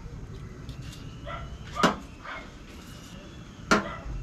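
Two sharp knocks about two seconds apart, a kitchen knife striking a cutting board.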